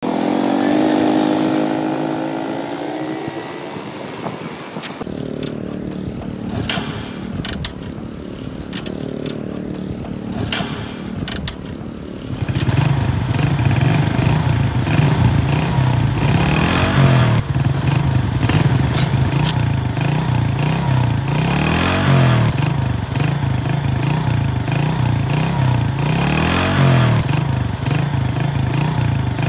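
A small 70cc single-cylinder motorcycle engine: clicks and rattles over a low rumble, then about twelve seconds in it comes up loudly and keeps running, revved briefly every few seconds. It opens with a few seconds of wavering, falling tones.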